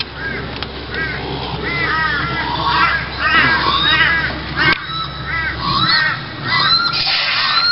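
Several crows cawing over and over, short calls in quick series, some overlapping at different pitches.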